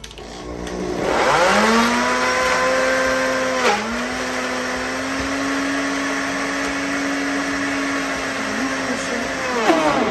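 High-powered countertop blender starting up, its motor pitch rising within about a second to a steady whine as it blends whole tomatoes, bell peppers and onion packed without water. The pitch dips briefly about four seconds in, then drops sharply near the end as the tamper pushes the thick load into the blades, and picks up again.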